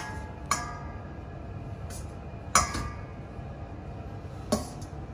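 Spoon and plate clinking against a stainless steel bowl as tomato slices are lifted out and laid down: about six sharp clinks with a brief metallic ring, the loudest about two and a half seconds in, over a steady low background hum.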